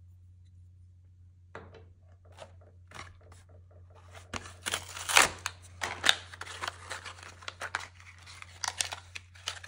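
Packaging being handled and opened by hand: an irregular run of crinkling, tearing and clicking that starts about one and a half seconds in and is loudest around the middle, over a faint steady low hum.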